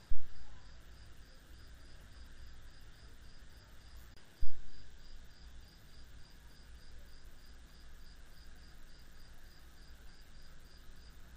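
Cricket chirping steadily, a short high pulse about three or four times a second, stopping near the end. Two dull thumps, one at the very start and one about four seconds in.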